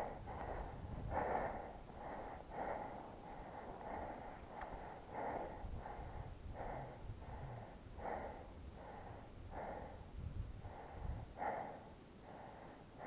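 A man breathing hard in short, regular breaths, about one every 0.7 s, while on foot in a marsh, with a few faint low thumps.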